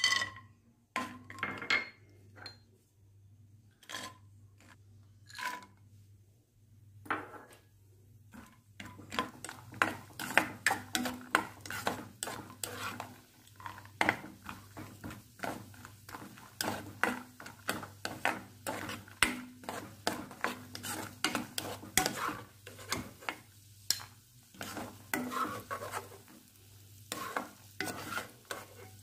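Cashews, almonds, pistachios and raisins tipped from a glass bowl into hot ghee in a non-stick pan, then stirred with a silicone spatula. The spatula scrapes and knocks against the pan and nuts over a light sizzle of frying. There are a few scattered knocks at first, then quick steady stirring strokes from about seven seconds on.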